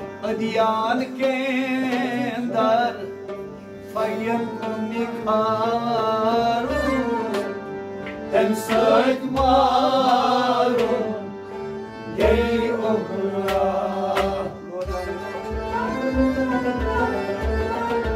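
Live Kashmiri Sufi kalam: men sing long phrases with vibrato over a harmonium and plucked rubabs. From about twelve seconds in, low rhythmic thumps come in underneath.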